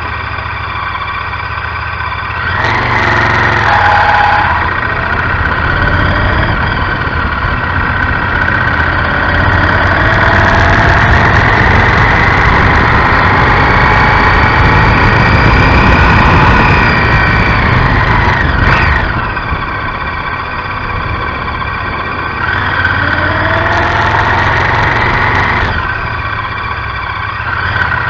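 Honda Varadero XL1000 motorcycle's V-twin engine running under way, its note climbing and falling with the throttle. It eases off about two-thirds of the way through and pulls up again soon after.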